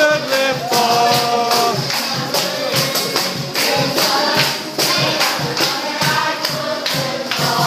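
A group singing an upbeat worship song together, with hand claps keeping a steady beat of a little over two strokes a second.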